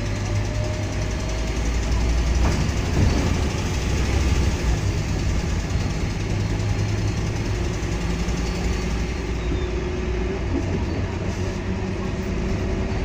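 Scania K230UB Omnilink single-deck bus heard from inside the passenger saloon while driving: the rear-mounted diesel engine and drivetrain hum steadily with road and body noise. A faint whine rises slowly in the second half.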